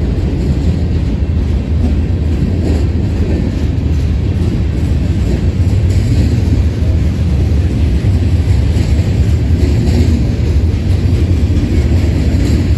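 Union Pacific freight train rolling past, its cars and wheels on the rails making a loud, steady low rumble.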